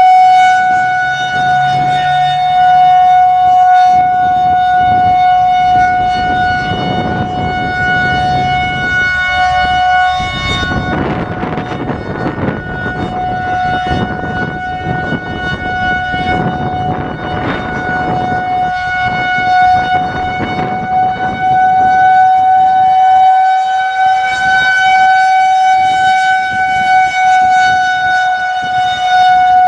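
Federal Signal 2001-130 rotating electromechanical warning siren sounding a steady single tone during a test, its loudness swelling and easing as it turns. Wind buffets the microphone with rumbling gusts through the middle stretch.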